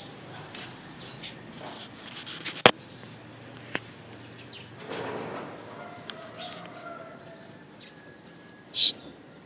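Birds chirping against a low background hum, with a sharp loud knock about two and a half seconds in, a lighter one a second later, and a short loud high-pitched sound near the end.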